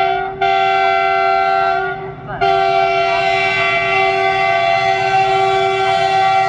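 Air horn of a WDG-6G diesel locomotive sounded as it approaches with a container train: one blast cuts off just after the start, a second lasts about a second and a half, then a long continuous blast begins about two and a half seconds in. Under the horn runs the low rumble of the train on the track.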